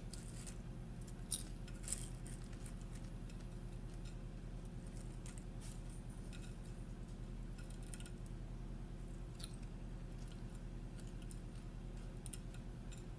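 A person quietly chewing a Subway wrap, with scattered small mouth clicks and smacks. A steady low hum runs underneath.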